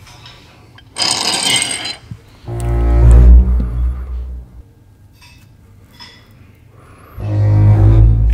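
A deep, low sound effect, a drawn-out bass drone with a roaring edge, heard twice, each time for about two seconds, a few seconds apart, after a short hissing noise about a second in. It is a scare sound for a horror prank.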